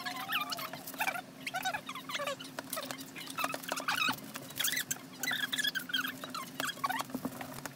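Homemade glue-and-borax slime being kneaded by hand on a plate, squelching in a quick, irregular run of sticky clicks and little squeaks as food colouring is worked in.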